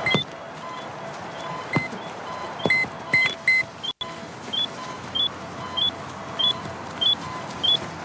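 Electronic beeper inside a football, the kind of audible ball used by blind players, chirping in a steady repeating pattern of short high and low tones about every half second. Five louder, sharper beeps come in the first four seconds.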